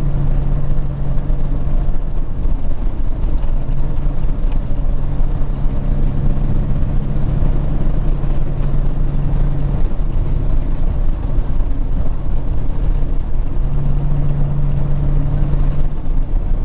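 Peterbilt 379 semi truck heard from inside the cab at highway speed: steady diesel engine drone over a heavy low road rumble. The engine's tone eases slightly in the middle and comes back near the end.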